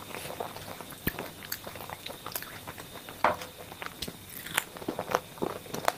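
Close-miked eating sounds: a person biting and chewing a fried snack, with irregular crunches and wet mouth clicks, the loudest a little past halfway.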